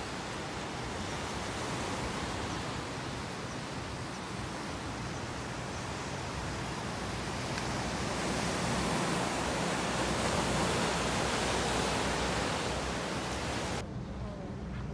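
Steady rush of sea surf washing against a rocky shore, swelling a little louder past the middle. About a second before the end it cuts off abruptly to a much quieter background with a low steady hum.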